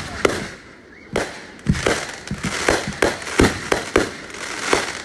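Aerial fireworks firing in quick succession: a rapid string of about a dozen sharp bangs from shots launching and bursting, with crackling between them.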